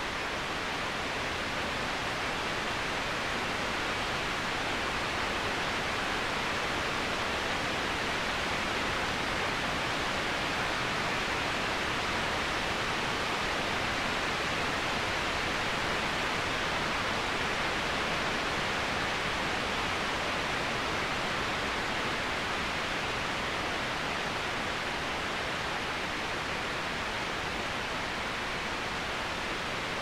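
Waterfall: a steady rush of falling water, an even hiss that does not let up.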